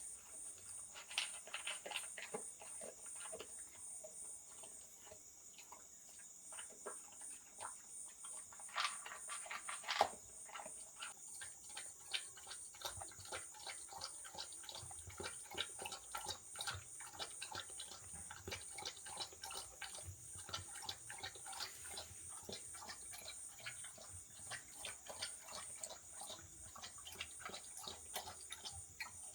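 A dog crunching dry kibble, many quick irregular crunches and clicks. Crickets chirp steadily in the background.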